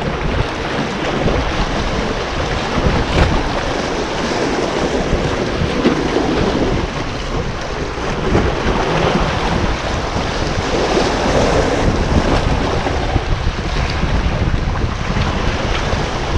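Sea waves washing and foaming over shoreline rocks, swelling and easing in surges, with wind buffeting the microphone.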